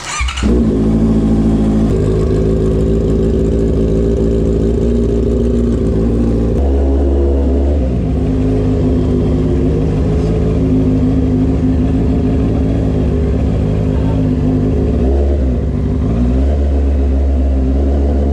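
Honda CB650R's inline-four engine starting up and then running steadily. It pulls away at low speed, the engine note getting deeper about six seconds in and dipping and rising briefly near the end as the throttle changes.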